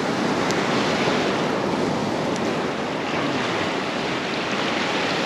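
Surf washing in over a shallow rocky reef shelf and rock pools, a steady rush of waves.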